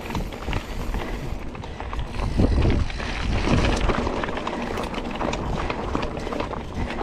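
Mountain bike ridden fast over a rough dirt trail: tyre noise and a constant clutter of small rattles and knocks from the bike, with wind buffeting the microphone in gusts, strongest about two and a half seconds in.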